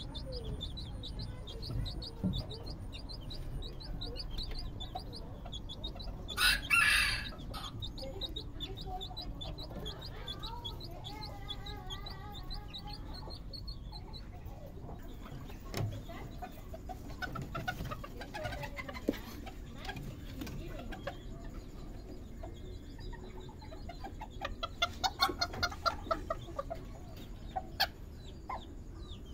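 Serama bantam chickens calling: rapid high peeping in the first few seconds, a short loud harsh burst about six seconds in, a wavering call around ten to thirteen seconds, and a quick run of about a dozen clucks near the end.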